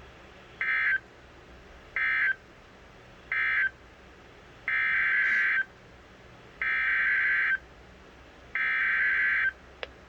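NOAA Weather Radio SAME data bursts from a weather radio's speaker, each a harsh digital buzz: three short end-of-message bursts about a second apart, then three longer header bursts starting about four and a half seconds in, which encode the next alert. A single click comes near the end.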